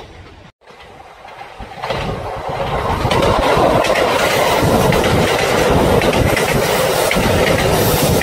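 Kintetsu electric multiple-unit train approaching and passing close by, its wheels clattering over the rail joints. After a brief drop-out about half a second in, the sound builds over the next two seconds and then stays loud and steady as the cars go by.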